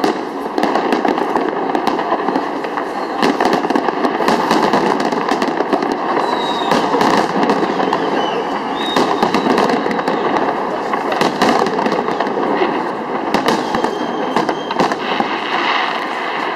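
Fireworks display: a continuous rapid barrage of cracks and bangs from aerial shells bursting overhead, with a few faint short whistles about halfway through.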